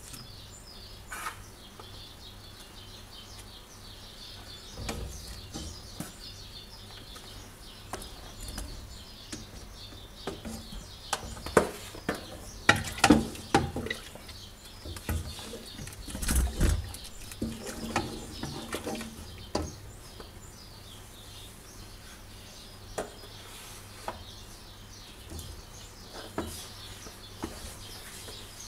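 Wooden spoon and metal slotted spoon knocking and scraping against an aluminium pot while a thick sesame-and-hazelnut mixture is stirred into sugar syrup: irregular clatters, busiest and loudest in the middle. Small birds chirp faintly in the background throughout.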